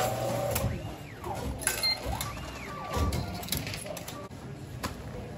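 Bathhouse ticket vending machine in use: repeated clicks of buttons and its ticket mechanism, with electronic tones that rise and fall twice and a short beep about three seconds in.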